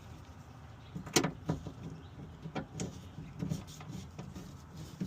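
A series of irregular short knocks and clicks, the strongest about a second in, from parts and hand tools being handled inside a car door during work on the window regulator.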